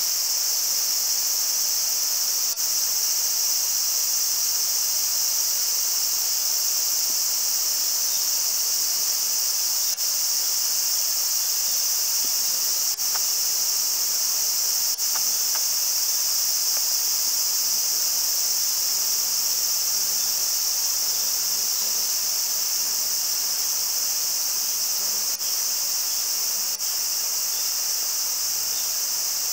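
Steady high-pitched drone of an outdoor insect chorus, unbroken throughout, with a few faint ticks here and there.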